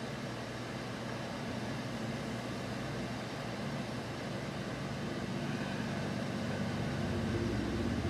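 A steady low mechanical hum with a hiss, slowly growing louder toward the end.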